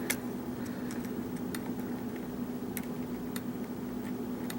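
Irregular light clicks of a lock pick and tension wrench working the pins of a Schlage pin-tumbler lock, over a steady low hum.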